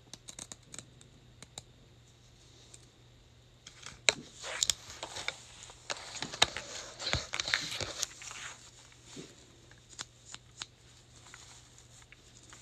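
Fingernails clicking and tapping on a tiny plastic toy, then about four seconds of crinkling and rustling plastic wrapping starting about four seconds in, followed by scattered light taps.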